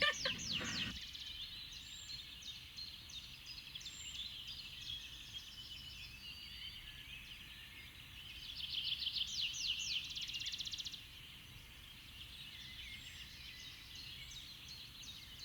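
Songbirds chirping and singing in a steady chorus, with a louder rapid trill from about eight and a half to eleven seconds in.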